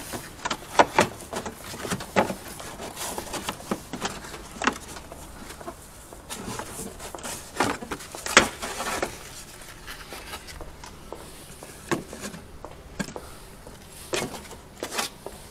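Plastic engine-bay side cover of a Subaru WRX STI being pulled and flexed off its retaining clips by hand: irregular clicks, knocks and rustles of stiff plastic, the sharpest about a second in and about eight seconds in.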